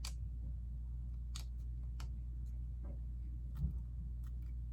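Light clicks of plastic Lego pieces being handled and pressed into place, about six scattered clicks with one duller knock a little past halfway, over a steady low hum.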